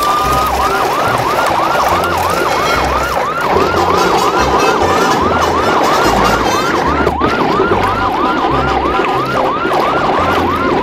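An ambulance-style siren in a fast yelp, repeating rising sweeps about three times a second, over a low pulsing beat.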